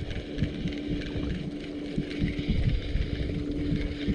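Boat motor running at a steady, even hum, with wind gusting and buffeting on the microphone.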